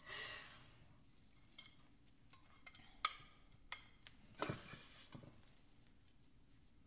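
Hands scooping damp potting mix from a stainless steel bowl and pressing it into a plant pot: faint scraping and rustling of soil, with a few sharp clicks against the metal bowl and a longer rustle about four and a half seconds in.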